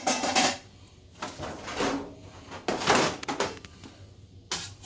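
A wire spider strainer clanking and scraping against a large aluminum stockpot in a few separate bouts of metal clatter.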